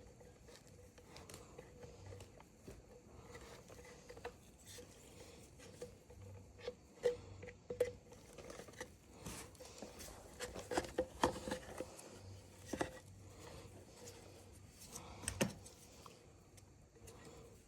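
Irregular small clicks, taps and knocks of hands working on chainsaw parts and tools, busiest through the middle of the stretch, over a faint steady hum.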